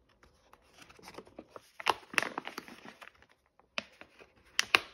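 Plastic snack pouch crinkling and crackling as it is handled and turned over: a dense run of crackles in the middle, then a few sharp crackles near the end.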